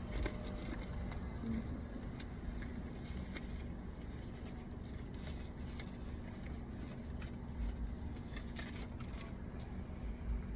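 Car engine idling with a steady low rumble and hum, with scattered faint small clicks and rustles over it.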